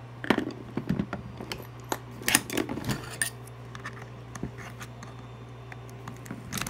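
A small screwdriver clicking and scraping against a butane torch's plastic housing as it is pried at the seam to open the case, with a close run of clicks in the first three seconds and occasional single ticks after. A steady low hum sits underneath.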